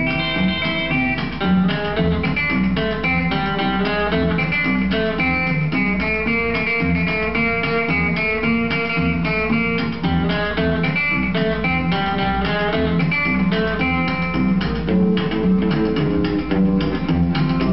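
Guitar instrumental break of a country song playing from a vinyl record on a turntable: picked single-note guitar lines over a steady bass beat, with no singing.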